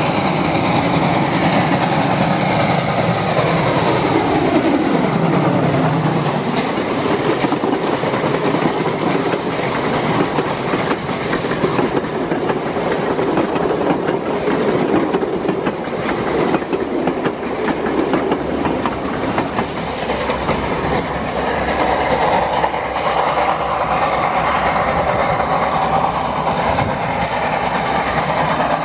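Pacific-type 4-6-2 steam locomotive No. 425 and its passenger cars running on a climbing grade, the wheels clicking over the rail joints.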